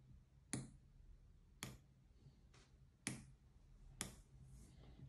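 Sharp clicks of the push buttons on an LED fan prop's controller board being pressed to change light patterns. There are about four clear clicks roughly a second apart, with a few fainter ones between.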